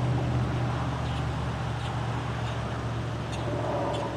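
A steady low engine hum, easing off slightly toward the end.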